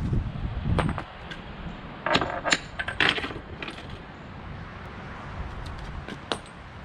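Loose steel wheel hardware being handled: a run of sharp metallic clinks and clanks, the loudest cluster about two to three seconds in and one more near the end, over a steady low hum.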